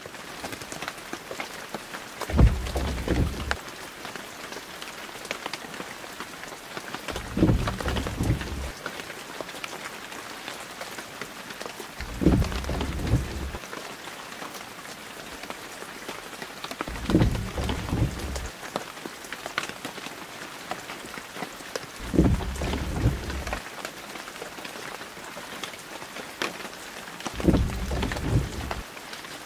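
Steady rain hiss, with a low rumble that swells and fades about every five seconds.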